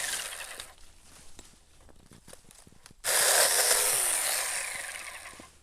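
Battery-powered 24-volt mini chainsaw with a 4-inch bar running and cutting into tree limbs, its small electric motor whining with the chain rasping through wood. The first run winds down about half a second in, a few small clicks follow, then the saw runs again from about three seconds in and winds down near the end.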